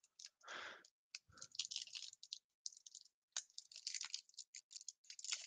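Foil trading-card pack wrapper crinkling and crackling faintly in the fingers as it is worked open by hand, in quick, irregular crackles.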